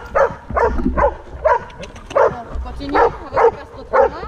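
A dog barking in short, high, repeated yelps, about two a second, without a break.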